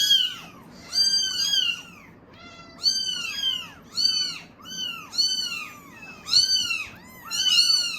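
Several Norwegian Forest Cat kittens meowing loudly and insistently. Their high, arching calls overlap and come about once a second. These are hungry kittens clamouring for milk.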